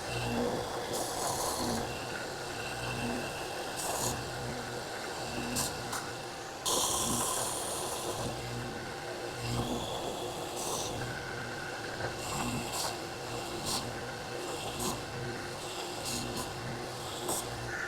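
Bench belt sander running, with a low pulsing beat and several short bursts of hiss where a wooden rail is pressed to the belt to sand its chamfer.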